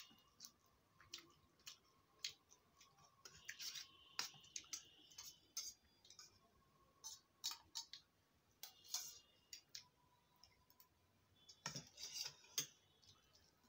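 Steel spoon clinking and scraping against a stainless-steel bowl and plate as dal is spooned out: scattered sharp clicks in several clusters, some with a short metallic ring, the loudest near the end.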